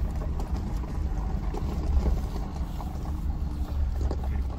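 Mercedes-Benz G-Class running at low speed, heard from inside the cabin as a steady low rumble of engine and tyres as it rolls over a gravel crest onto a descent.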